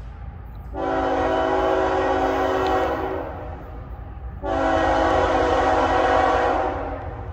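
Air horn of the approaching CSX 3326 diesel locomotive sounding two long blasts, each about two seconds, in a several-note chord, given as a horn salute. A steady low rumble runs underneath.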